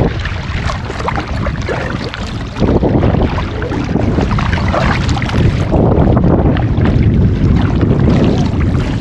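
Wind buffeting the microphone out on open water, with water washing against a small boat's hull.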